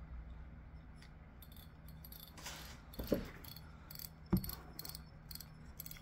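Faint, rapid light clicking from a Daiwa saltwater spinning reel being worked by hand, with two soft knocks, about three and about four and a half seconds in.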